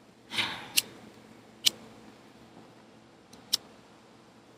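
A cigarette lighter being struck to light a cigarette: a short hiss near the start, then three sharp clicks, the last one after a gap of about two seconds.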